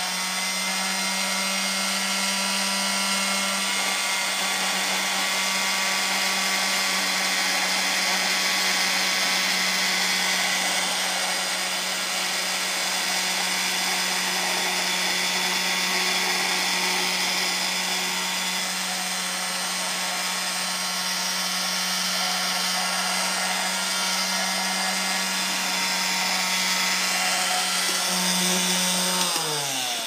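Vacuum cleaner motor running steadily at full speed with a high whirring hiss over a low hum, then switched off near the end and winding down in falling pitch.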